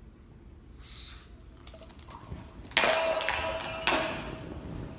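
A stainless steel dog bowl clangs on a hardwood floor twice, about a second apart past the middle, each hit ringing and then dying away. A pug gives a short snort about a second in.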